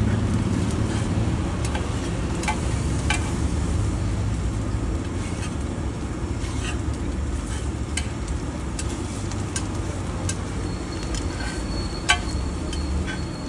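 Metal spatula and scraper blade clinking and scraping on a flat iron griddle as egg-coated bread pieces are cut and turned, with irregular sharp taps, the loudest near the end. A steady low rumble runs underneath.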